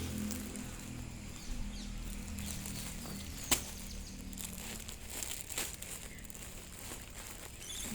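Light rustling and scattered small clicks while puppies are being fed, with one sharper click about three and a half seconds in. A low hum fades away over the first few seconds.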